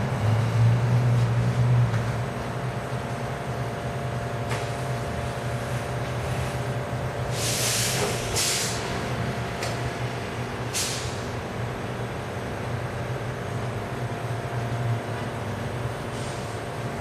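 Steady low mechanical hum of shop ambience, with three short hisses about halfway through.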